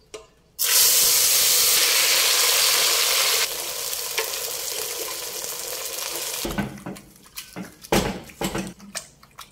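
Beans with their liquid poured into a glazed clay pot on the stove: a loud hiss starts about half a second in and softens a few seconds later, then stops. Near the end a spoon stirs the beans, knocking and scraping against the clay pot several times.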